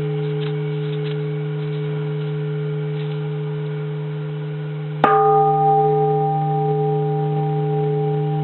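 Large uncracked bronze Japanese Buddhist temple bell ringing on with a steady low hum and several higher overtones. About five seconds in it is struck once with a heavy wooden striker: a sharp clang, then a brighter ring that slowly fades.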